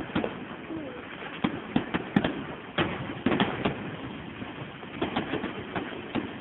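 Fireworks going off: a dozen or so sharp bangs at irregular intervals over a steady background noise.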